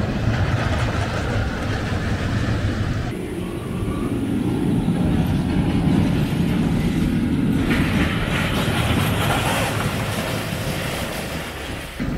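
Steel mine-train roller coaster rumbling along its track in a steady low roar. The sound changes abruptly twice, about three and eight seconds in.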